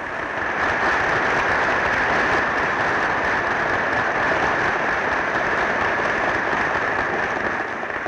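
Audience applauding steadily, beginning to die away near the end.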